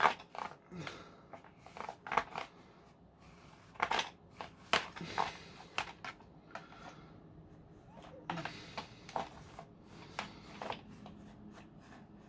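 A cloth duster and a screwdriver scraping and rubbing around the inside of a Dyson V10's plastic housing, with irregular sharp clicks and knocks of plastic.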